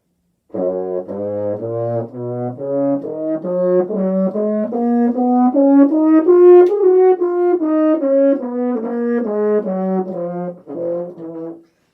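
French horn playing a D-flat major scale over two octaves, in even, separately tongued notes climbing to the top around the middle and stepping back down to the starting note.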